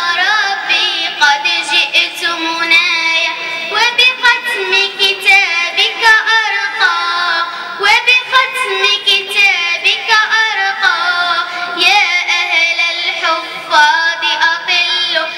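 A young girl singing an Arabic devotional nasheed solo, the melody full of wavering, ornamented runs with short breaths between phrases.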